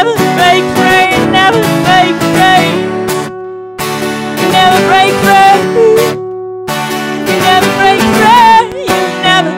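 A woman singing an indie-folk song live with acoustic guitar accompaniment, the voice holding and bending long notes.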